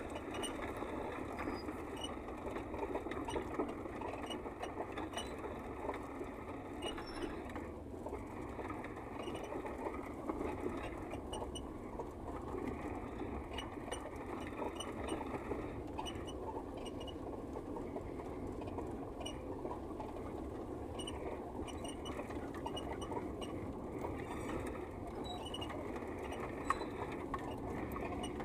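A car driving over a rough dirt road, heard from inside the cabin: steady engine and tyre noise with small scattered ticks and rattles.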